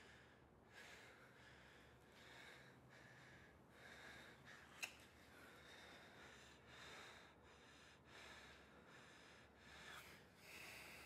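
Faint human breathing: soft breaths in and out, one about every second, with a single small sharp click about halfway through.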